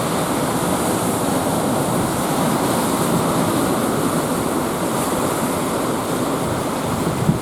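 Rough, typhoon-driven sea: a steady, loud rush of surf breaking.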